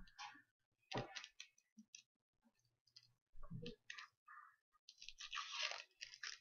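Faint crackling and clicking of a plastic water bottle and its wrap-around plastic label under the fingers as the label is worked loose, turning to a steady crinkling rustle about five seconds in as the label is peeled away.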